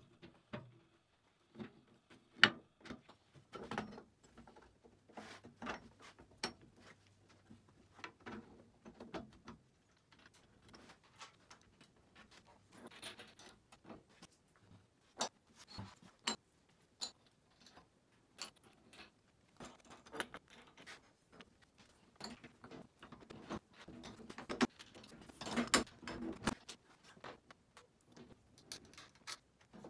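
Light metal clinks and clicks of nuts, bolts and washers being handled and fitted onto wheelbarrow handle brackets, with a busier stretch of clatter near the end.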